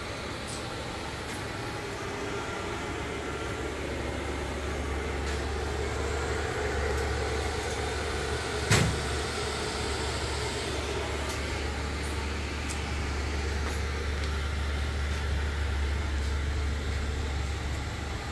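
A steady low hum with a faint hiss, and one sharp knock about nine seconds in.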